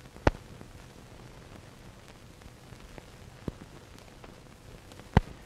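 Steady hiss of an old film soundtrack, broken by sharp clicks: one just after the start, a fainter one midway and a loud one near the end.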